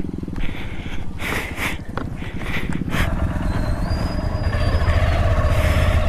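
Motorcycle engine running at low speed with an even, pulsing thrum, growing louder about halfway through as the bike pulls away.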